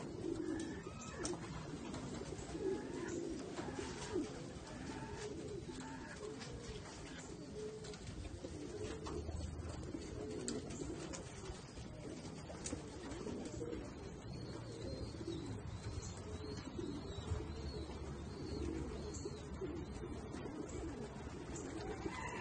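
A flock of white release doves (homing pigeons) cooing together, many soft warbling coos overlapping into a continuous murmur.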